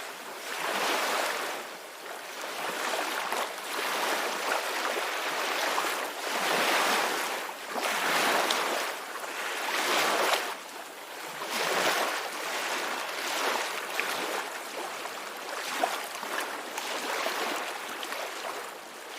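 Ocean surf: waves washing in and drawing back, the hiss of the water swelling and falling away every second or two.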